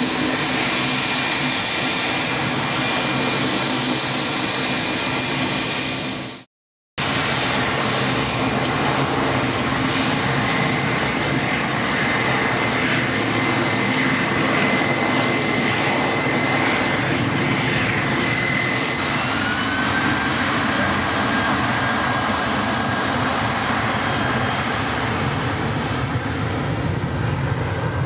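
Jet airliner engines at takeoff power. First a Boeing 757-200's engines run loudly and steadily with a high whine, cut off abruptly about six seconds in. Then an Airbus A320's engines run loudly, and about two-thirds of the way through their whine rises in pitch and holds higher as they spool up for the takeoff roll.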